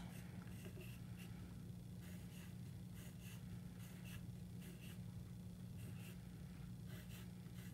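Wooden pencil scratching on paper in a series of short, repeated strokes as U-shaped feather lines are drawn, over a faint low steady hum.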